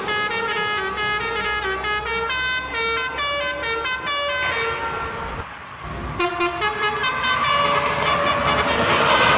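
Bus 'telolet' horn, a multi-tone musical air horn playing a quick tune of short stepping notes over the bus's running engine. It breaks off for a moment about five seconds in, then starts again with faster notes.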